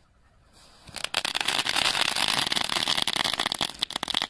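Crackling ground fountain firework (a 'chatar-patar') catching: a faint fuse hiss about half a second in, then about three seconds of loud hissing spray full of dense, rapid crackling pops. It dies down suddenly near the end.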